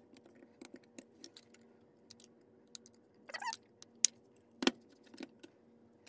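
Small folding knife blade scraping and clicking against the steel beam of a split-beam torque wrench as epoxy is shaved off its adjustment screw. Faint scattered ticks, a short scrape about three seconds in, then two sharper metallic clicks.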